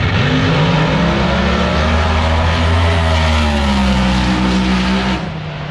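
No-prep drag race cars running at full throttle down the track: a loud engine din whose pitch climbs and then eases off. It cuts off suddenly near the end.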